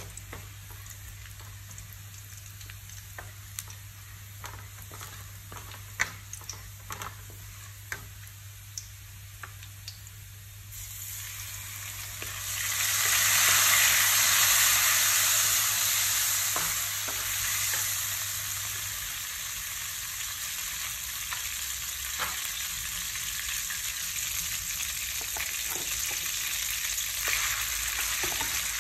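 Garlic and spring onion frying in a wok, stirred with a wooden spatula that clicks and scrapes against the pan. About twelve seconds in, the sizzle grows much louder and then carries on steadily.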